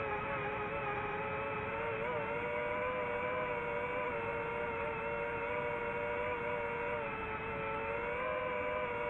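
Multirotor drone's motors and propellers whining steadily, as picked up by the drone's own camera. The pitch wobbles briefly about two seconds in and dips slightly a little before the end.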